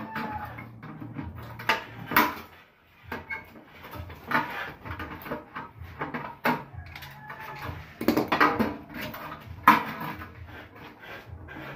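Irregular sharp metallic knocks and clanks from a small steel panel-board enclosure being worked with a screwdriver as conduit is fitted to it.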